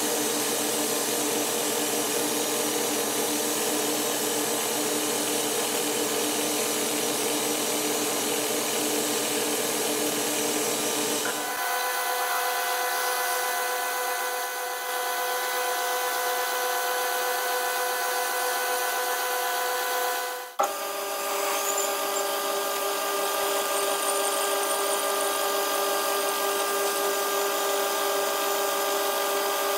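Boxford BUD lathe running steadily while drilling into a stainless steel bolt, first with a centre drill and then with larger twist drills. The steady machine whine changes pitch abruptly twice, about a third and two thirds of the way through.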